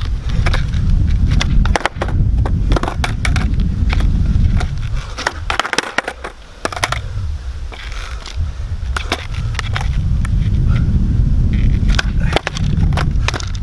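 Skateboard on asphalt during kickflip attempts: many sharp clacks and knocks of the wooden deck and wheels striking the court. Under them runs a steady low rumble of wind on the microphone, which drops away briefly about halfway through.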